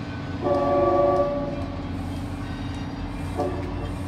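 Shore Line East train's multi-chime air horn: one long blast about a second long starting about half a second in, then a short blast near the end. Underneath, the departing train's steady low engine drone.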